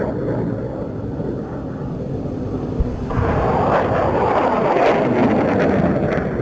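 HIMARS rocket launch: a low rumble, then a short thump about three seconds in and a sudden, loud rushing roar as a rocket leaves the launcher, easing off near the end.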